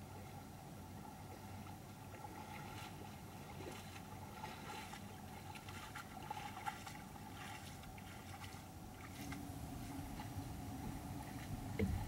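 Black bear wading through a shallow creek, the water splashing and sloshing in short bursts with its steps over the steady rush of the stream. A sharp knock sounds just before the end.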